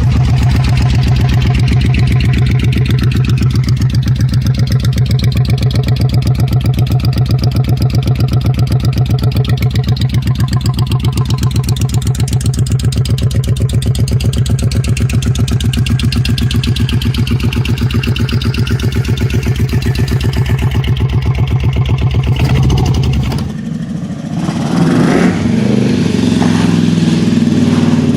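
Kawasaki VN750 Vulcan V-twin idling with a steady, even exhaust beat. About 23 seconds in the sound cuts to a different recording of the bike running, with the engine briefly revved.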